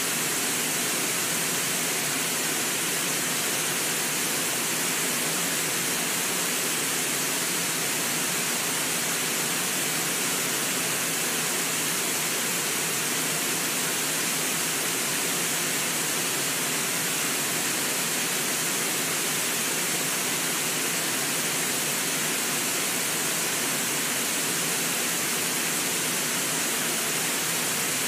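Brooks Falls on the Brooks River: water pouring over the lip of the falls in a steady, unbroken rush.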